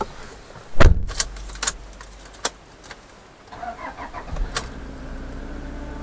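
Inside a Toyota's cabin: a heavy thump, then keys jingling and clicking as a key goes into the ignition, and about four and a half seconds in the engine starts and settles into a steady idle.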